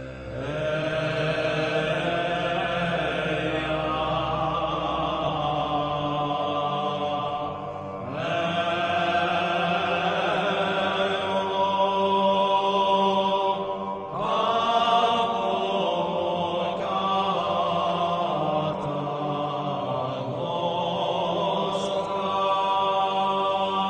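Background music with sustained, chant-like vocal tones, moving to a new held phrase every few seconds.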